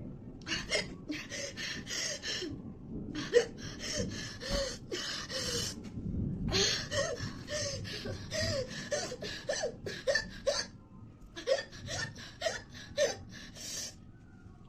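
A woman gasping and panting in quick, short breaths, many with a brief voiced catch, while hiccuping. She is reacting to the burn of an extremely hot chili chip that leaves her struggling to breathe.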